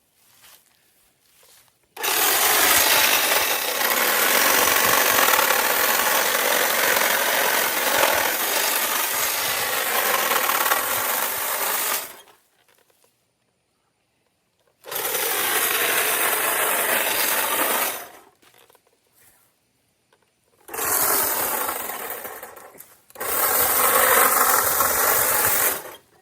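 Small power saw cutting tree branches in four runs, one of about ten seconds and three shorter ones, stopping fully between cuts.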